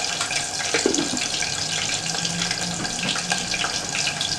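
Pot of water heating on the stove, a steady hiss with small irregular crackles as tiny bubbles form and collapse on the way to the boil.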